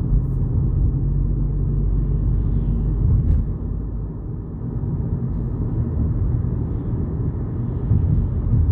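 Volkswagen Polo GTI driving, heard from inside the cabin: a steady low rumble of engine and road noise, easing briefly about four seconds in.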